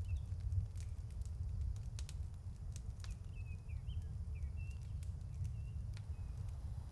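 Open fire of dry twigs crackling, with a few sharp pops, over a low steady rumble. A bird chirps a run of short notes about three to six seconds in.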